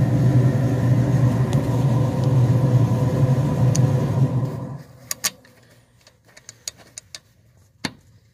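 A steady engine hum that cuts off suddenly a little under five seconds in, followed by faint scattered clicks and taps of a brake caliper's slide-pin sleeve and bolt being handled.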